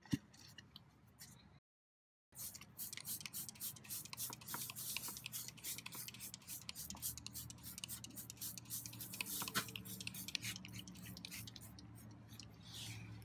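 Hand spray bottle of degreaser being squeezed over and over, a dense run of quick sharp spritzes starting about two seconds in, with a faint low hum underneath.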